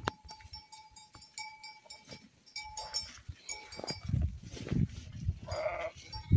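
Small livestock bells tinkling with light intermittent strokes, and one short bleat about five and a half seconds in, with low thumps in the second half.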